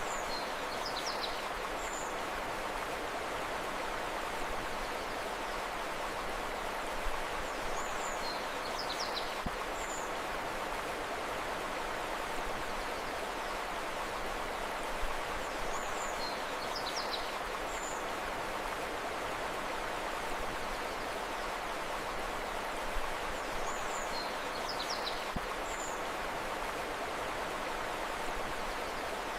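Steady rush of a flowing river, with a short bird call of a few high chirps repeating four times, about every eight seconds.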